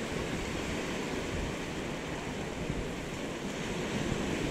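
Small surf breaking and washing up on a sandy beach: a steady rushing noise.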